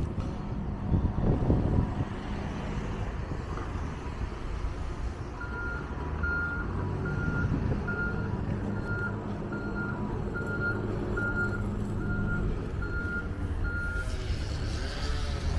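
Backhoe loader's diesel engine running steadily, with its reversing alarm sounding a run of short, evenly spaced beeps from about five seconds in until shortly before the end.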